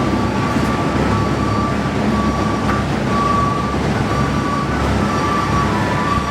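Shopping cart rolling over a hard store floor, its wheels rumbling and rattling steadily, with a thin high squeal that comes and goes.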